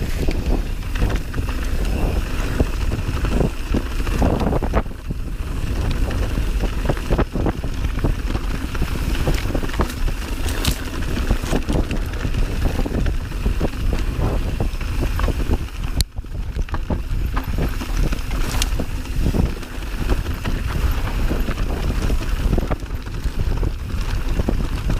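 Mountain bike ridden over a dirt singletrack: steady wind buffeting on the camera microphone, with tyre-on-dirt noise and frequent short rattles and knocks from the bike over bumps and stones.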